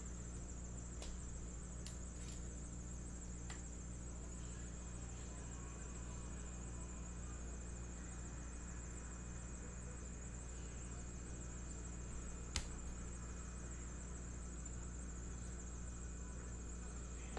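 Quiet room tone: a steady low hum and a high steady whine. Over it are a few faint clicks of trading cards and a clear plastic card holder being handled, with one sharper click about twelve seconds in.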